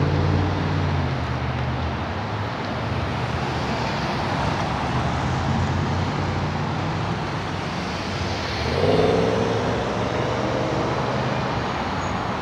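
Road traffic on a multi-lane street: cars and pickup trucks driving past steadily, with one vehicle passing louder about nine seconds in.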